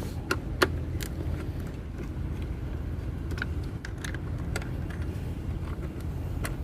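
Scattered sharp clicks and light knocks from removing the screws and the plastic fairing of a scooter by hand, over a steady low rumble.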